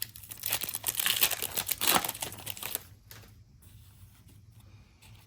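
A trading card pack's plastic wrapper being torn open and crinkled, a loud dense crackle lasting about two and a half seconds, then fading to faint handling noise.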